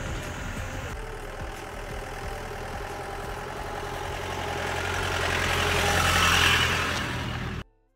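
Off-road jeep's engine running as it drives up a dirt track and passes close by, growing louder to a peak about six seconds in, then cutting off abruptly near the end.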